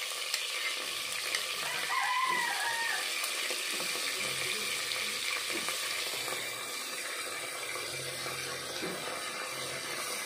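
Chicken pieces sizzling in hot oil in a cooking pot, a steady hiss of frying that sets in as the meat goes in.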